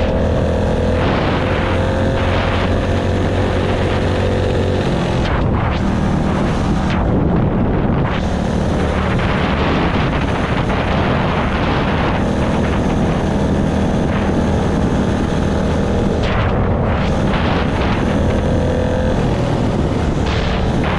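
Honda GX160 single-cylinder four-stroke engine on a mini bike running under load while being ridden, its pitch holding steady for several seconds, shifting, then steadying again, with rushing wind noise over it.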